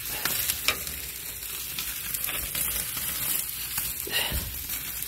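Chicken thighs sizzling on a grate over very hot charcoal, with fat and barbecue sauce dripping into flare-ups. A couple of light knocks can be heard, the first about a second in and the second near the end.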